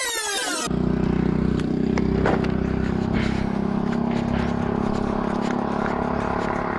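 Electronic music cuts off under a second in. Then a boat's motor runs steadily, with scattered small clicks and knocks.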